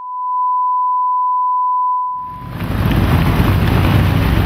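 Steady 1 kHz line-up test tone under colour bars, fading out about two seconds in. It gives way to loud, steady outdoor noise with a strong low rumble.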